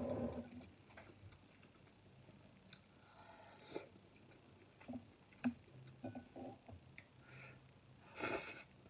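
A person eating glass noodles from a hotpot: soft chewing with scattered sharp mouth clicks, then a loud slurp of noodles near the end.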